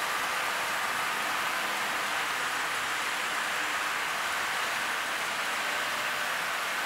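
A model train running on its track: a steady rushing hiss of small wheels rolling on the rails, with a faint steady hum from the locomotive's motor.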